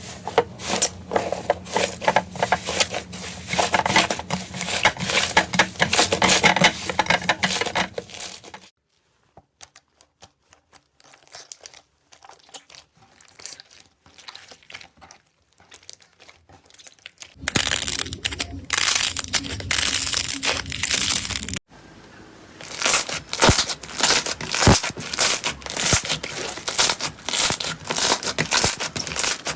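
Slime being squeezed and worked by hand, giving dense crackling, crinkling pops and sticky tearing sounds. It comes in separate segments that change abruptly, with a much quieter, sparser stretch of crackles in the middle.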